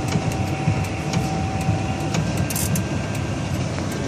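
Steady low rumble of a running motor vehicle, with scattered sharp ticks over it.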